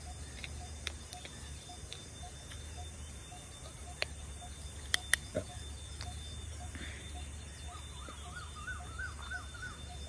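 A plastic drink-bottle cap is twisted open, giving a few sharp plastic clicks around the middle. Outdoor bird calls run throughout, with one short note repeating about twice a second and a warbling call near the end.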